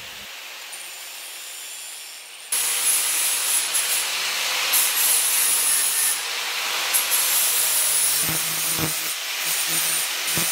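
Angle grinder grinding galvanized steel conduit: it starts suddenly about two and a half seconds in and runs steadily with a high whine, dipping briefly a few times near the end.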